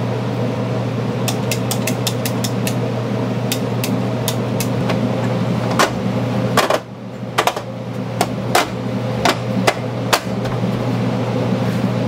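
Irregular sharp taps, clicks and knocks of hand work on a plastic washing-machine outlet box and the wall framing around it, over a steady low hum.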